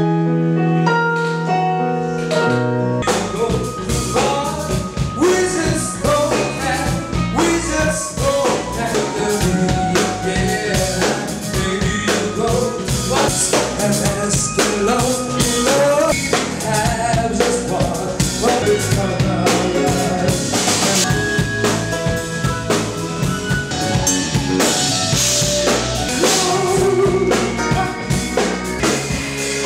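Band music: held keyboard chords for about three seconds, then drums and the full band come in, with a man singing over them.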